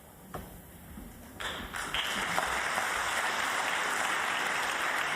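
Snooker audience applauding, rising quickly about a second and a half in and then holding steady. A single sharp click comes just before it.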